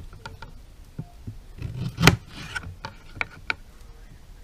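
Kitchen knife cutting a lemon on a plastic cutting board: small clicks and scrapes of the blade, with a sharp knock of the knife or lemon on the board about two seconds in.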